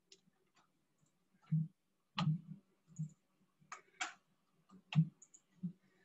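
Computer mouse clicks: several short, sharp clicks at irregular intervals.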